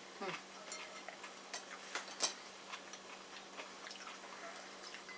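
Quiet eating sounds at a sushi meal: scattered small clicks and taps of utensils and the food trays, with chewing, and one sharper click a little over two seconds in.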